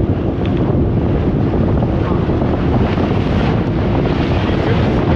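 Steady wind buffeting the camera microphone aboard a small motorboat at sea, over the low rumble of the boat and the rush of water.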